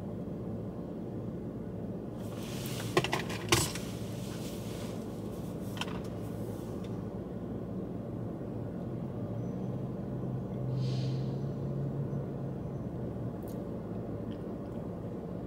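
Steady low hum of a car's engine idling, heard from inside the cabin. A few sharp clicks and rattles come about three seconds in, one more near six seconds, and the hum swells briefly about eleven seconds in.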